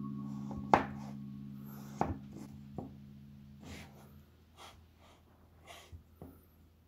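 Kitchen knife slicing an avocado thinly on a wooden cutting board. There are several knocks of the blade against the board, the loudest about a second in, then softer slicing strokes about once a second.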